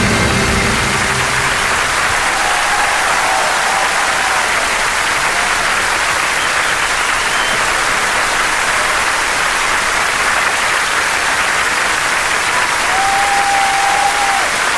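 Large audience applauding steadily, as the orchestral music dies away in the first second or two.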